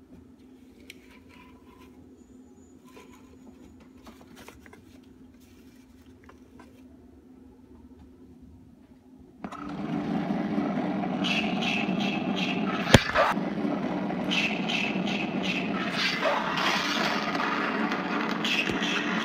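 Life-size animated Jason Voorhees Halloween prop switching on about halfway in: a loud, rough, steady noise sets in suddenly and keeps going, with one sharp click a few seconds after it starts. Before that there are only faint handling clicks.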